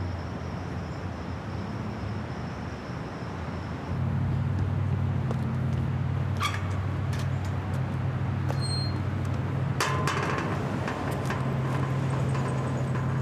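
Steady low hum of city background, like traffic or an idling engine, growing louder a few seconds in, with two sharp knocks that ring briefly partway through.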